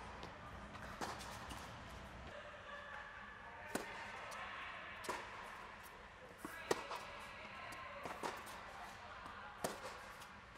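Tennis rally: sharp pops of racket strings striking the ball and the ball bouncing on the hard court, about one every one to one and a half seconds, echoing under an air-supported dome.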